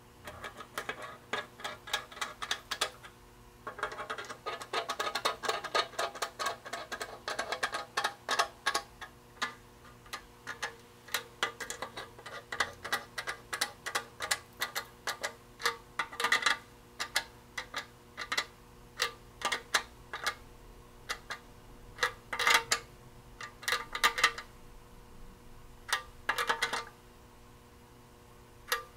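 Small nuts and lock washers being run down onto a gauge's mounting studs on a steel tractor dash panel with a hand nut driver: a long run of light metallic clicks and ticks, densest about four to nine seconds in, with a few louder clusters of clicks later.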